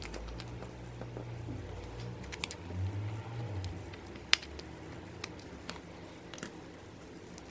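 Scissors snipping through a foil tube of balloon paste: a scattering of sharp clicks and crinkles, the loudest about four seconds in.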